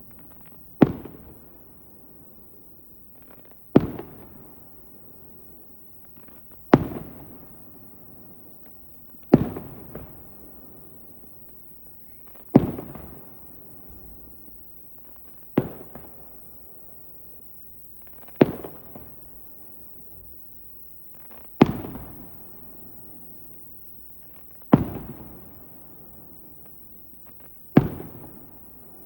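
Aerial firework shells bursting: ten sharp booms about three seconds apart, each followed by a rumbling echo that fades away.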